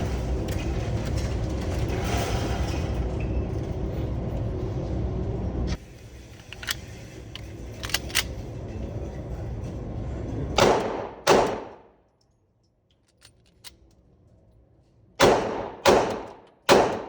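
A steady low rumble cuts off about six seconds in. A few faint clicks follow, then two firearm gunshots with short echoing tails about three-quarters of a second apart, and after a pause three more shots in quick succession near the end.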